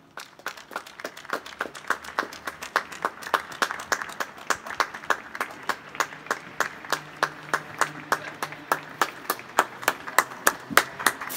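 Hand clapping: applause of sharp, separate claps at a fairly steady pace of about four a second, growing a little louder toward the end.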